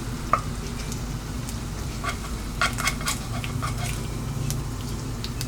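Light clicks and taps of kitchen utensils and dishes being handled, scattered and clustered around the middle, over a steady low hum.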